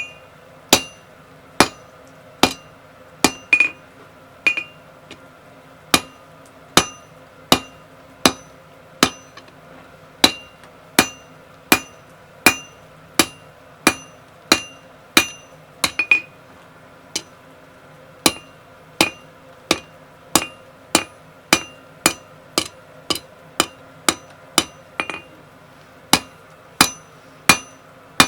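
Hammer blows on hot steel round bar over an anvil in a steady rhythm, a little over one blow a second, each with a short bright metallic ring. The smith is knocking the corners off a tapered section to make it round.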